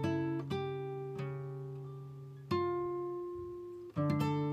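Background music of slow plucked-string chords, likely acoustic guitar. A new chord is struck every second or so, and each is left to ring and fade.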